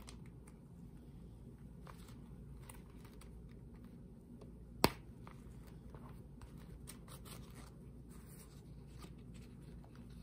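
Faint rustling and handling of a zip-around leather bi-fold wallet and the paper insert inside it, over a low steady hum, with one sharp click about five seconds in.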